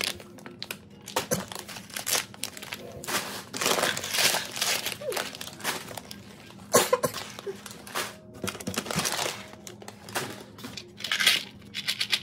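Plastic food pouches of rolled oats and farro crinkling as they are handled and lifted out of a cardboard box, in irregular bursts.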